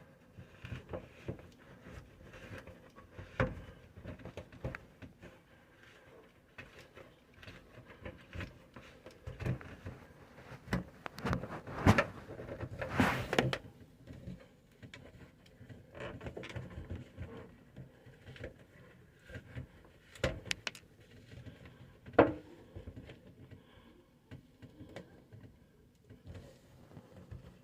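PVC drain pipes and fittings being handled and fitted together under a sink: scattered plastic knocks, clicks and scrapes, with a cluster of louder knocks about twelve to thirteen seconds in and one sharp knock about twenty-two seconds in.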